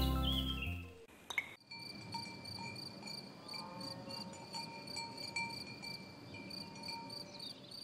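Music fading out over the first second. A brief click follows, then a forest-undergrowth ambience of insects chirping in a steady, regular pulse.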